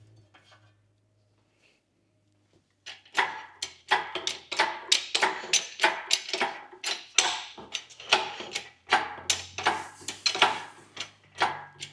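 About three seconds of near silence, then a steady run of sharp knocks, about three a second.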